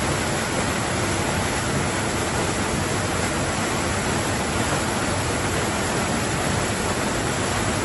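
Small waterfall cascading through a rock cleft into a shallow pool, a steady, even rush of water.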